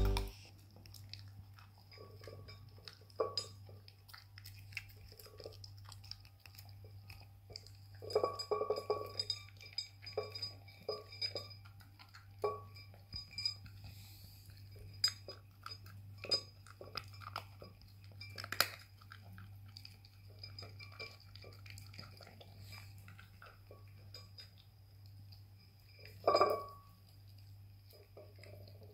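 Corgi puppy eating dry kibble from a ceramic bowl: irregular clinks of kibble and muzzle against the bowl, mixed with crunching chews, with a few louder knocks of the bowl.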